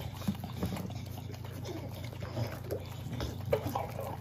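Two American Bully dogs licking and gobbling soft mashed cake from a plate: irregular wet smacks and slurps with short snuffling grunts.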